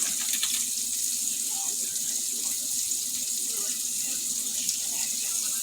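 Food frying in a hot pan, a steady high sizzle.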